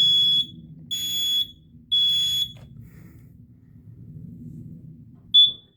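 Kidde smoke alarm sounding its test alarm in the three-beep pattern: three loud, high-pitched beeps, each about half a second long and one a second apart, then after a pause a single short beep near the end.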